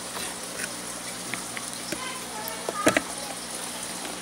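A spoon and fork clicking against a plate a few times, with a louder cluster of clinks just before three seconds in, over a steady background hiss.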